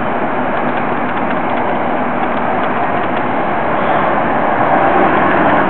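Diesel engine of a Neoplan double-decker coach running as it moves slowly across the lot. The sound is a steady, loud rumble that swells a little about four to five seconds in.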